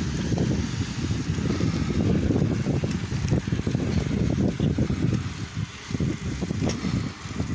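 Wind buffeting the microphone of a camera on a moving bicycle: a low, rumbling noise that rises and falls unevenly and drops away briefly twice in the second half.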